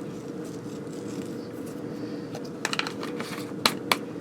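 Light clicks and rattles from handling a spice container while seasoning food, over a steady hum. A short run of clicks comes just past the middle, then two sharp clicks near the end.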